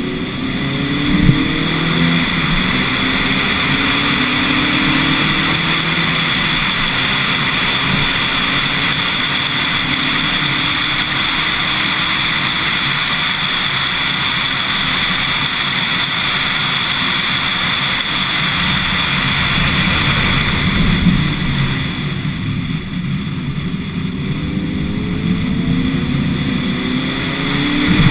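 Lotus Elise S1 111S's 1.8-litre Rover K-series four-cylinder engine accelerating with its pitch rising, heard from a camera mounted on the car. A sharp knock comes about a second in. The engine then settles under a steady rushing noise and climbs in pitch again near the end.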